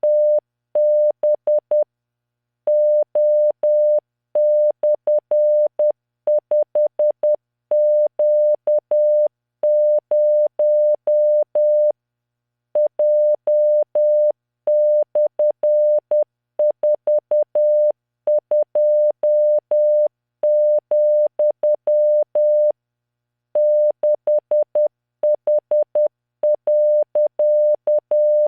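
Computer-generated Morse code: a steady 600 Hz tone keyed on and off in dots and dashes at 10 words per minute, sending random five-character groups with short pauses between the groups.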